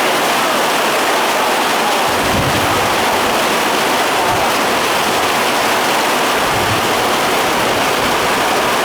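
Heavy rainstorm: a downpour making a steady, dense hiss.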